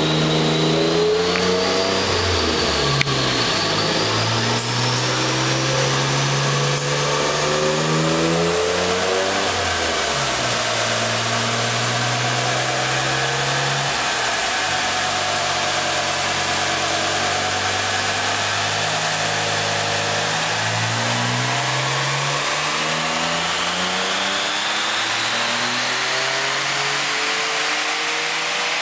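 Dodge Stealth twin-turbo 3.0-litre V6 running hard on a chassis dynamometer. The engine note climbs and falls back in steps, as through gear changes, through the first half, holds fairly even, then rises in one long steady climb over roughly the last third as the pull runs up the revs.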